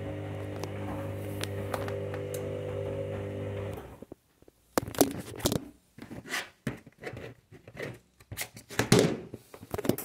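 A steady low hum stops abruptly about four seconds in. Then come irregular knocks, clicks, scrapes and rustles of a plastic tumble dryer fluff filter being handled.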